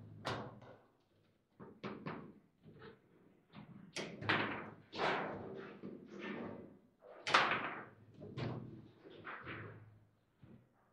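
Foosball table in play: a rapid, irregular string of sharp knocks and bangs as the plastic figures strike the ball and it hits the table's sides.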